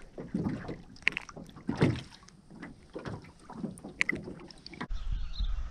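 Small sea waves lapping and splashing right against a camera held at the water's surface, in uneven surges. Near the end this cuts to a steady low wind rumble on the microphone.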